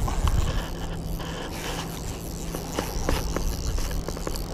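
Wind rumble and a steady low hum, with scattered light knocks and clicks from handling on a boat, bunched about halfway through.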